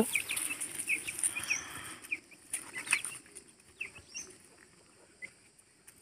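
Young Aseel chicks giving short, high peeps here and there, with a few light taps and rustles.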